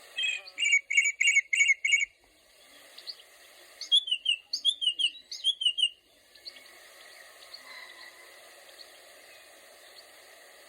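Songbird singing: a quick run of about six repeated notes in the first two seconds, then a series of rapid down-slurred high notes about four seconds in, over a faint steady background hiss.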